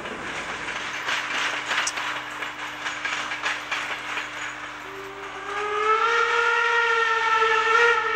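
Steam locomotive 18 201 working slowly, with a run of irregular beats and clatter. About five seconds in it sounds its steam whistle, one steady chord held for about three seconds.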